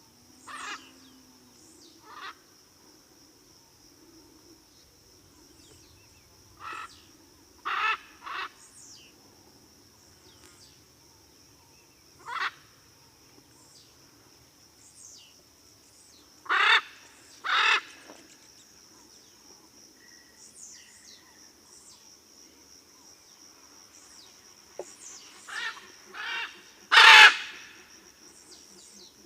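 Blue-and-yellow macaws calling: short, harsh calls, singly or in pairs at irregular intervals, the loudest near the end. A steady high-pitched whine runs underneath.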